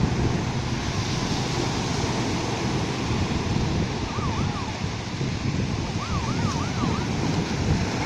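Ocean surf breaking and washing up a sand beach in a steady roar, with wind buffeting the microphone.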